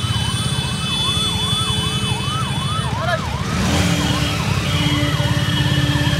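A siren wailing up and down about twice a second over the low, rapid pulsing of motorcycle engines riding past. A little past the middle a horn starts sounding in a few long blasts.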